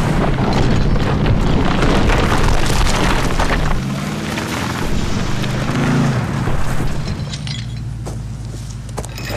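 2011 Ford F-150's 3.5L EcoBoost twin-turbo V6 working hard under heavy load while the tyres churn through dirt, as the truck drags a log of several tons uphill. It dies down near the end.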